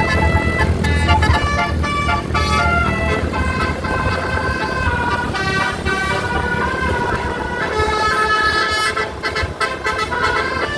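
Indonesian bus telolet horn playing a tune of short notes that jump from pitch to pitch, over the low rumble of the bus engine.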